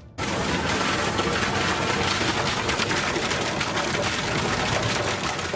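Fountain water pouring steadily from a stone face's mouth and splashing below, a constant rush that cuts in suddenly just after the start.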